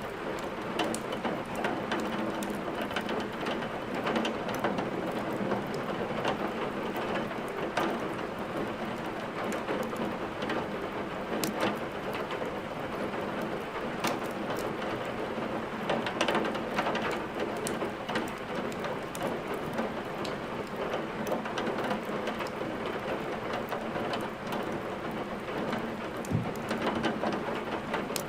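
Steady rain falling, a constant even hiss, with a wood fire crackling over it in scattered sharp pops and snaps.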